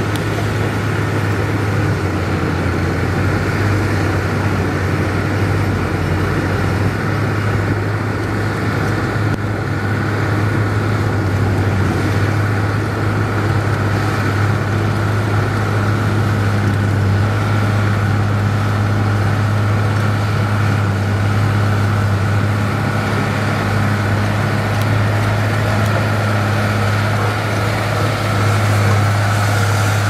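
Komatsu crawler bulldozer's diesel engine running steadily under load as the dozer pushes soil with its blade: an even low drone with a faint steady whine above it.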